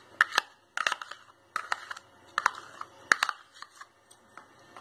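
Metal spoon scraping and tapping against a plastic mayonnaise tub and bowl as mayonnaise is spooned out: light, irregular clicks and scrapes.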